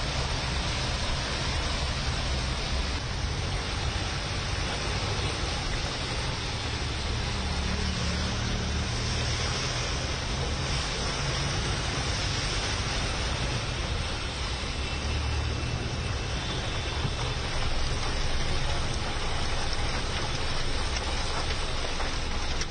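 Steady heavy rain falling on a flooded road, with cars driving through the standing water and a low rumble of traffic underneath.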